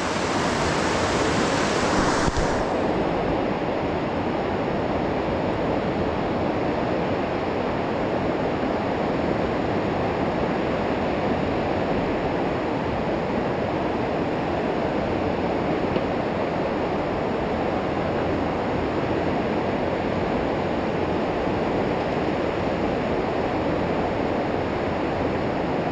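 Fast river water rushing through a narrow rock gorge: a steady white-water noise. About two seconds in, the hiss softens as its highest part drops away.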